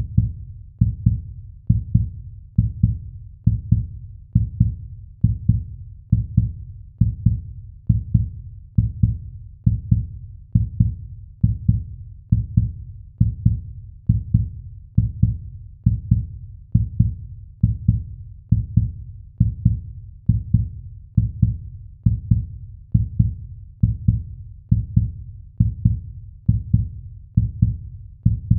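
Heartbeat sound effect: steady, low double thumps (lub-dub) repeating a little faster than once a second.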